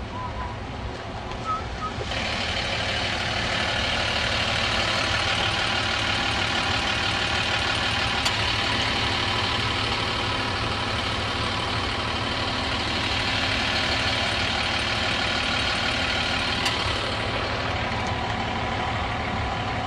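Steady rushing road noise from a moving car, tyre hiss and wind over a low engine rumble. It rises about two seconds in and holds.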